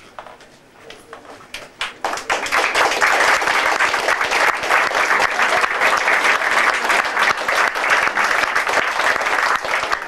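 Audience applauding: a few scattered claps at first, then full, steady applause from about two seconds in.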